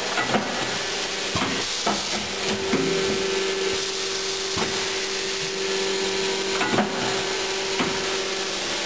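Marden Edwards stretch banding machine dry cycling: a steady hiss with irregular clicks and knocks from its mechanism. A steady hum joins about two seconds in and stops near the end.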